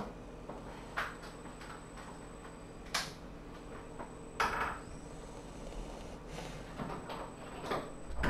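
Scattered short knocks and clicks, one every second or so, over a steady low room hum; the loudest knock comes right at the end.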